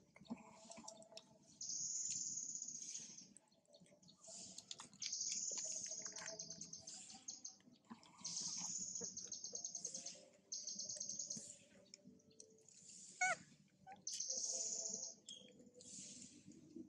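Outdoor background of high, buzzing trills, each about a second long, repeating every second or two. A short, sharp falling squeal comes about two-thirds of the way through and is the loudest sound.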